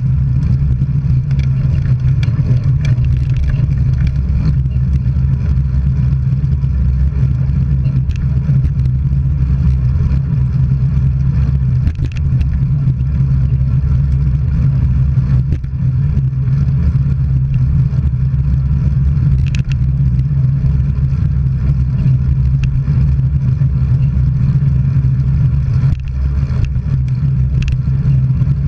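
Steady road and wind noise of travelling along a road, with a strong constant low hum and a few faint clicks.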